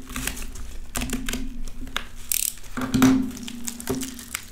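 Clear plastic bubble-wrap bag crinkling and crackling as hands open it and slide a circuit board out, in irregular bursts, loudest about three seconds in.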